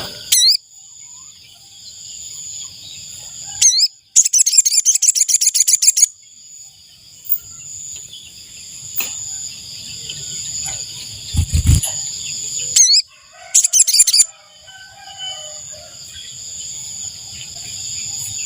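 Sogon bird calling: a fast, high, rapidly repeated trill about four seconds in lasting some two seconds, a shorter trill later, and a few short sweeping notes between, over a steady high insect-like whine. A low thump sounds just past halfway.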